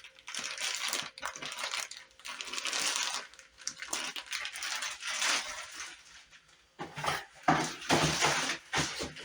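Rustling of plastic packaging and light clinks and knocks of small hard plastic parts being handled, the clinks louder and more separate near the end.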